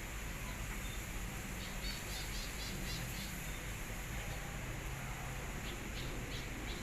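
Two quick runs of short, high-pitched chirps from a small animal: about eight near two seconds in and a few more near the end, over a steady low hum and hiss.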